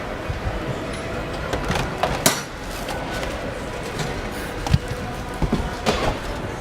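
Car assembly-plant noise: a steady hum of machinery and air, broken by scattered sharp metallic clicks and knocks of tools and parts. The loudest knocks come about two seconds in and just before five seconds.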